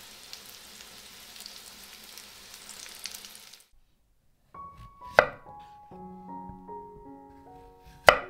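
Battered zucchini slices frying in a pan of oil: a steady sizzle with small crackles that stops about three and a half seconds in. After a short silence, light background music with two sharp knife chops through a zucchini onto a wooden cutting board, about three seconds apart; the second chop is the loudest sound.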